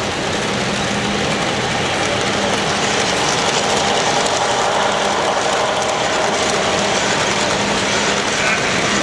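HO scale model passenger train, pulled by F7 diesel locomotives, rolling past close by: a steady running noise of small wheels on the rails and the locomotive motor, with a faint steady hum.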